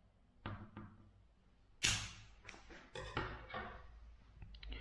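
Scissors snipping Dacron fishing line, with two small sharp clicks and then a louder clack just under two seconds in, followed by light scattered clicks as the scissors are laid on the wooden tabletop and small pieces are handled.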